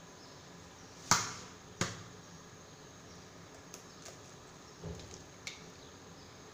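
An egg knocked twice against the rim of a mixing bowl to crack it: two sharp knocks about a second apart. Faint clicks and a soft knock follow as the shell is pulled open to separate the white from the yolk.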